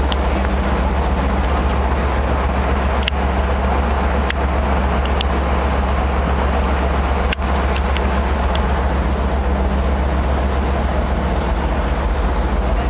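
Steady, loud low rumble of a ship under way heard from the open deck, wind and engine noise together. A few sharp clicks come through it, the loudest about seven seconds in.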